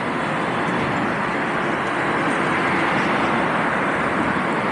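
Steady road and traffic noise heard while travelling along a busy city street.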